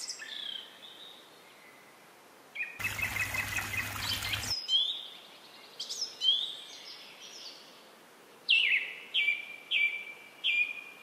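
Birds chirping: short calls that slide down and settle on a brief held note, coming in clusters and ending in a run of about five near the end. A burst of rushing noise lasts about a second and a half, about three seconds in.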